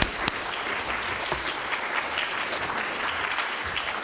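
Audience applauding: a dense, steady round of clapping from many people.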